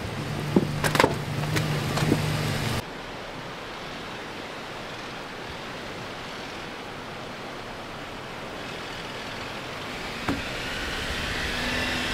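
Motor vehicle running: a steady low engine hum with a few clicks, then an abrupt change about three seconds in to an even road-like noise that grows slowly brighter and louder toward the end.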